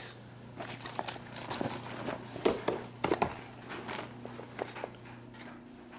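Irregular light knocks, taps and clicks of a foldable soft-shell suitcase being handled, over a faint steady hum.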